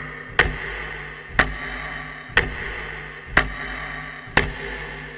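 Countdown clock tick sound effect: five sharp ticks, one a second, over a low steady hum.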